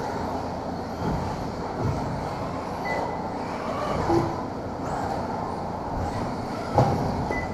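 Radio-controlled racing cars running round an indoor carpet track: a steady whir of electric motors and tyres echoing in a large hall, with a single knock near the end.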